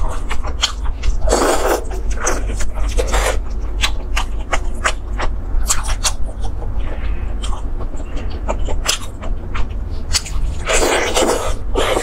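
Close-miked eating of a sauce-glazed chicken drumstick: wet chewing and lip-smacking with many sharp sticky mouth clicks, and two longer, louder noisy bursts, about a second and a half in and near the end. A steady low hum runs underneath.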